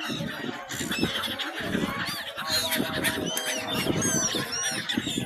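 A flock of gulls calling, many short cries overlapping one another.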